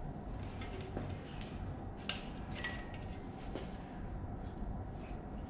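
A few light metal clinks and taps, one briefly ringing, as the dipstick tube is worked loose from the oil pan of a Ford 302 V8 engine, over a steady low hum.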